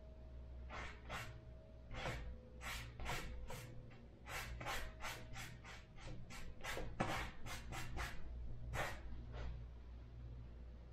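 A painting tool rubbing and scraping across a canvas in quick, short strokes, about twenty of them over eight seconds, stopping near the end, over a low steady hum.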